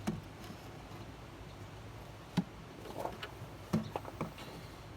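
A handful of light, sharp taps and clicks, four or so spread over several seconds, over a faint steady hiss.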